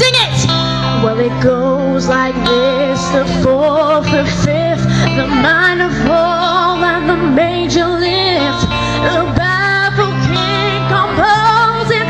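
A female singer singing live into a handheld microphone through a stage PA, over amplified pop backing music with steady sustained bass notes.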